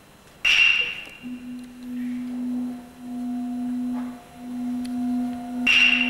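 Stage music: a bright metal bell struck twice, each strike ringing out briefly, over a low sustained tone that swells and fades in long pulses.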